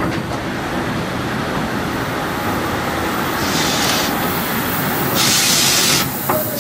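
DR class 52 2-10-0 steam locomotive rolling slowly past with a steady rumble of wheels and running gear. From about three and a half seconds in there are loud hisses of steam roughly every one and a half seconds, each under a second long.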